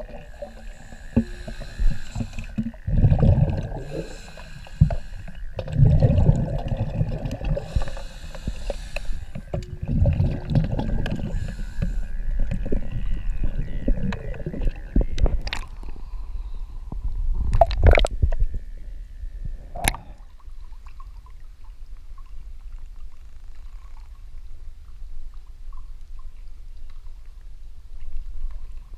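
Scuba diver breathing underwater: exhaled bubbles from the regulator rumble out in bursts about every three to four seconds. A few sharp knocks follow past the middle, then it goes quieter.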